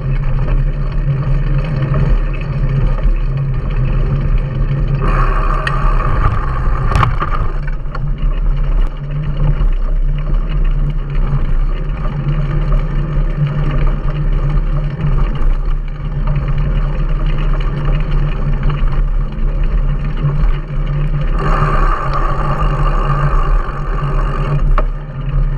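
Steady wind buffeting on a bike-mounted action camera's microphone, with the rumble of a mountain bike's knobby tyres rolling over a sandy, bumpy dirt track and occasional knocks and rattles from the bike.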